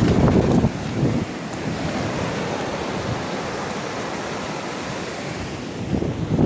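Surf washing onto a beach, with wind buffeting the microphone. The rush is heavier for about the first second, then settles to a steady wash.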